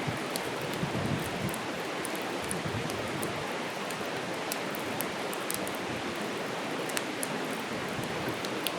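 Wood campfire burning: a steady rushing hiss with scattered sharp crackles and pops.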